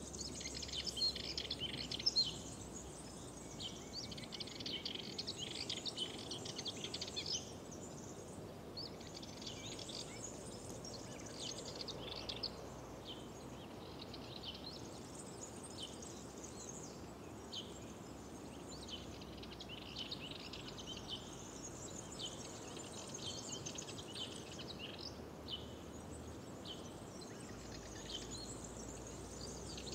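Several small birds singing in spring woodland, their chirps and trills coming in busy overlapping runs with short lulls between, over a faint steady background hiss.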